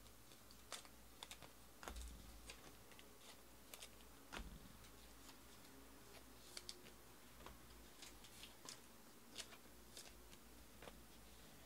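Faint, irregular clicks and taps of baseball trading cards being handled: cards picked up, slid and set down on the table and against the stack. A couple of the taps carry a soft thump.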